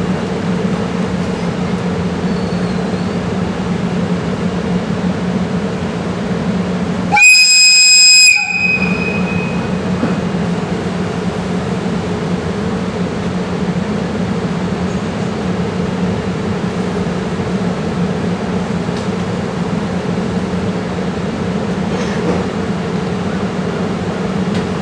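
EF64 electric locomotive's whistle giving one short, high-pitched departure blast of about a second, over a steady low hum.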